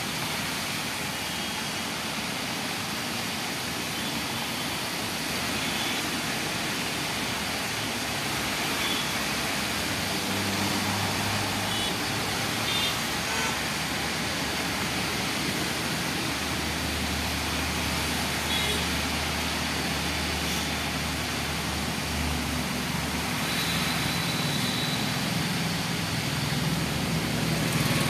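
Road traffic on a rain-wet road: a steady hiss of tyres on wet asphalt under the engines of passing cars and auto-rickshaws. A low engine hum swells for a few seconds past the middle, and the traffic grows louder near the end.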